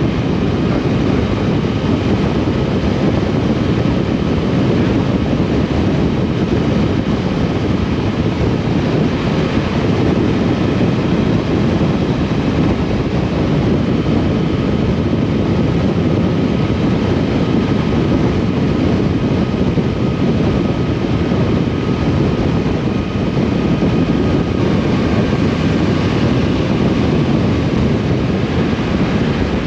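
Riding noise from a moving motorcycle: steady wind rush on the camera microphone with the motorcycle's running noise beneath it.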